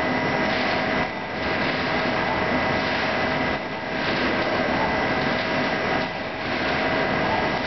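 Metal lathe turning a nut blank under flood coolant: a steady machine hum and spray hiss with thin steady whine tones. The noise dips briefly about every two and a half seconds.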